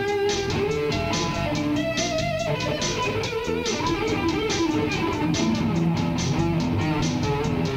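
Instrumental music: guitar playing over a bass-guitar line, with a steady rhythm of strokes.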